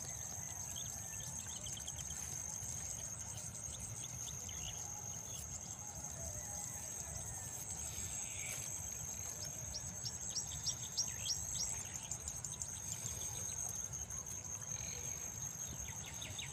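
Field insects trilling in steady high tones over a low rumble, with a quick run of short high chirps about ten seconds in.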